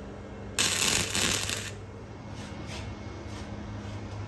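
Wire-feed welder crackling through a tack weld of about a second on a steel bracket, followed by a few faint short crackles.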